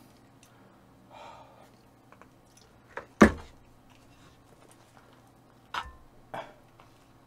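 A few knocks and clicks on a table, the loudest a single sharp knock about three seconds in, with a faint low steady hum underneath.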